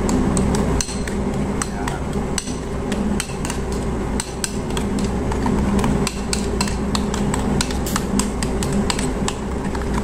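Metal spoon clinking against a porcelain bowl while stirring a thick mayonnaise dressing: rapid, irregular clicks, several a second, over a steady background hum.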